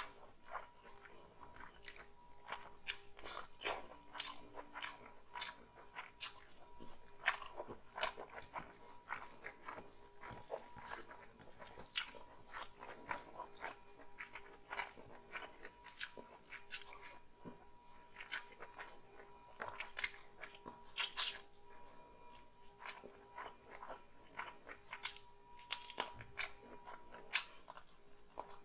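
Eating sounds of a person chewing and biting mouthfuls of rice and chicken curry eaten by hand: a dense, irregular run of sharp mouth clicks. A faint steady hum lies underneath.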